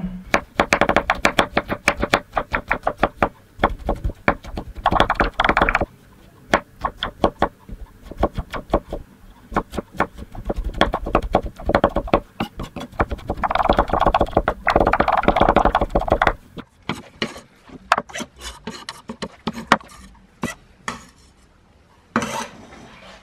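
Kitchen knife chopping garlic cloves on a wooden cutting board: a fast, uneven run of blade taps on the wood, thinning out and quieter in the last few seconds.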